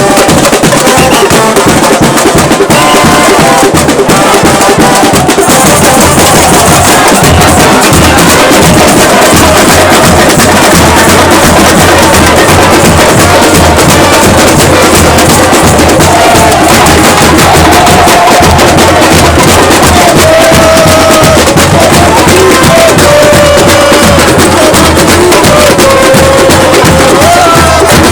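Football supporters' drum band (bateria) playing a fast, driving rhythm on drums and percussion, loud and close. Wavering melodic lines, from chanting voices or a horn, run over the drums.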